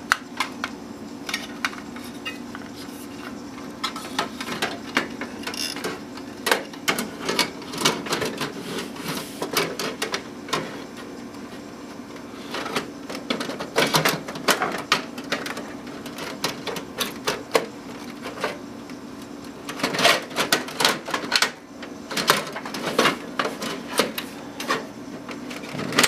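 Irregular clicks, taps and rattles of the front USB header cable and its plastic connector being pushed and threaded through a desktop computer case, coming in clusters over a steady low hum.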